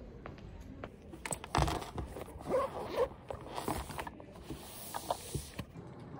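Black fabric bag being handled and unzipped: rustling and a zipper in several short, irregular bursts with small clicks, starting about a second in and stopping shortly before the end.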